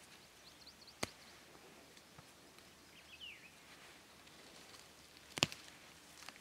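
Two sharp snaps as green plant stalks are picked by hand from the ground, a small one about a second in and a louder one near the end, over faint outdoor quiet.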